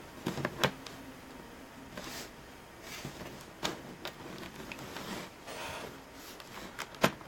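A few faint, short clicks and soft rustles from hands working the laptop and its power adapter plug, the sharpest clicks about half a second in, near four seconds and just before the end.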